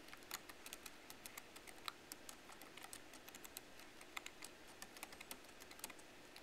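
Typing on the small, cramped keyboard of a CTL Convertible Classmate 2 Go netbook: faint, quick, irregular key clicks, several a second.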